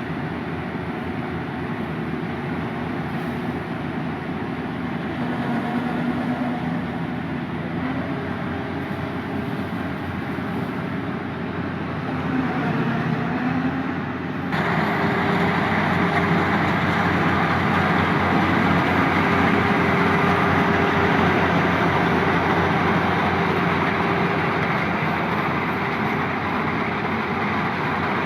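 Yanmar YH850 combine harvester running: a steady diesel engine and machinery noise. It jumps louder and brighter about halfway through.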